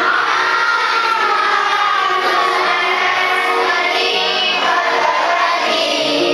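Music with singing: a song with high voices, which could be children's or women's, over an instrumental accompaniment.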